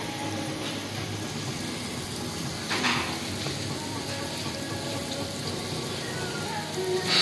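Batter rings frying in hot oil in an automatic doughnut machine: a steady sizzle with a low hum underneath, and a brief louder rush of noise about three seconds in.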